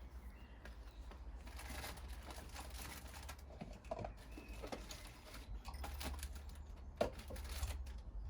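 Rustling and crinkling of bird-food packaging with irregular light taps and clicks as food is handled and put out, with a few faint bird chirps.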